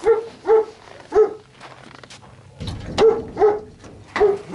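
A dog barking: about six short barks, three in quick succession, a pause of under two seconds, then three more.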